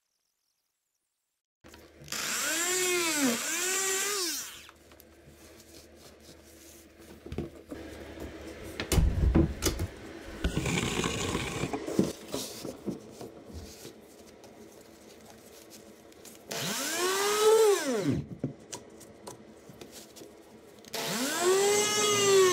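Dremel Multi-Max MM30 oscillating multi-tool cutting into the bottom of a wooden door casing in three short bursts, its whine rising and falling in pitch within each burst. Between the bursts come scattered knocks and handling sounds.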